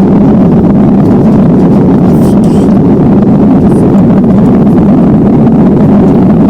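Steady engine and airflow noise of an Airbus A320-200 heard inside the passenger cabin: a constant low rumble with no change in pitch.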